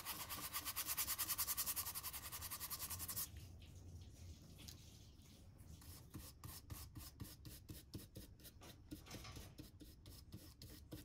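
Flat bristle brush scrubbing oil paint onto canvas: quick, even back-and-forth strokes, about seven a second, then from about three seconds in quieter and slower strokes.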